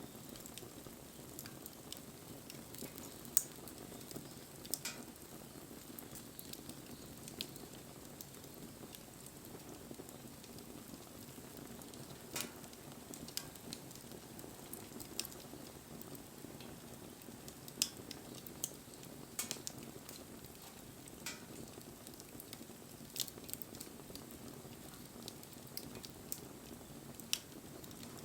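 Wood campfire burning, a steady low rush of flame with irregular crackles and sharp pops from the burning wood.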